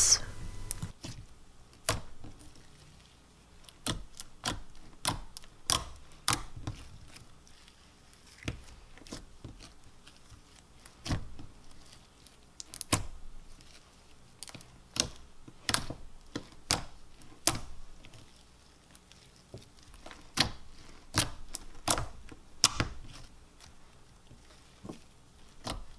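Clear slime being stretched, folded and pressed by hand, giving off scattered sharp clicks and pops, sometimes in quick little clusters.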